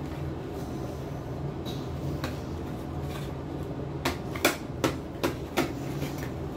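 A plastic toothbrush blister pack being pried at by hand, giving five sharp clicks in under two seconds about two-thirds of the way in, over a steady low hum.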